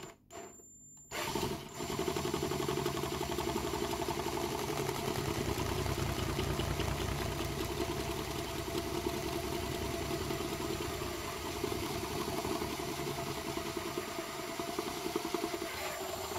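Power drill running steadily as a large twist bit bores through the wall of a plastic enclosure. A short blip of the trigger comes first, then the drill runs continuously until it stops right at the end.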